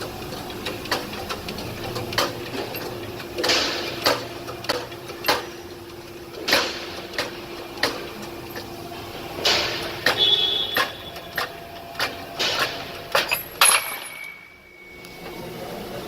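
Irregular sharp metal clanks and knocks from a shop press as the old wheel bearing is pushed out of the hub, over a steady low hum that fades about ten seconds in.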